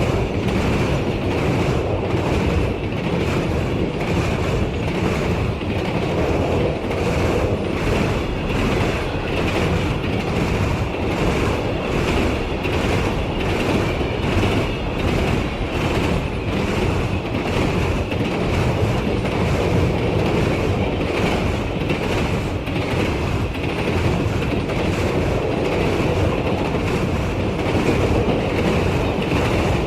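Train cars rolling past on the rails: a steady, loud rumble with an even clickety-clack from the wheels crossing rail joints.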